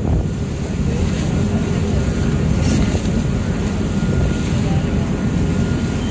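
Tour boat under way: a steady engine rumble with wind buffeting the microphone and water washing past.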